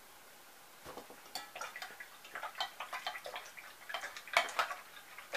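A paintbrush clicking and rattling against the inside of a small metal cup, a rapid irregular run of light clicks starting about a second in.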